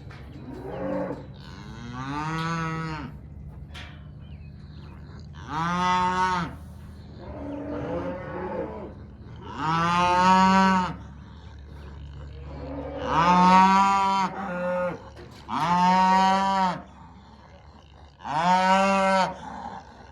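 Cattle mooing: about eight long moos a couple of seconds apart, some loud and some softer, each rising and then falling in pitch.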